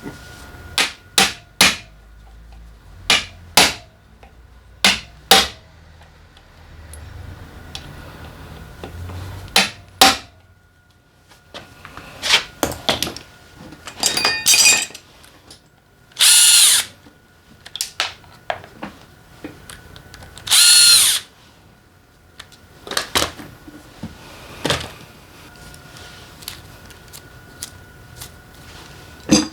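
Handheld power driver run in three short bursts of about a second each, among sharp clicks and clinks of metal tools and parts.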